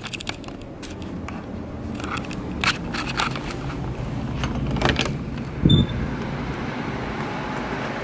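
Handheld-camera handling noise with scattered sharp clicks, then a doorknob turning and an interior door pushed open with a short low thump a little under six seconds in. A steady hiss follows once the door is open.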